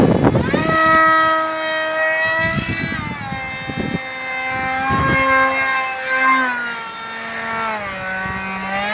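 Brushless 2212-size electric motor and propeller of a foam RC F-22 model jet in flight, a steady whine whose pitch drops and rises several times as the plane passes and the throttle changes. A gust of wind buffets the microphone at the start.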